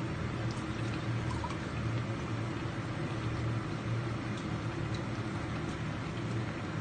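A pot of cabbage and broth simmering: a steady bubbling hiss with scattered small crackles, over a steady low hum.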